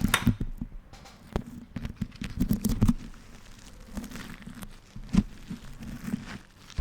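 Beeswax food wrap crinkling and crackling as it is scrunched and pulled in the hands, its tacky wax sticking and peeling apart in irregular little crackles, with low handling thumps. The crackles are densest about two to three seconds in, and there is a sharp snap about five seconds in.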